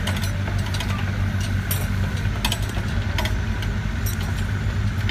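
Small excavator's diesel engine running steadily at a low hum, with scattered sharp clicks and knocks.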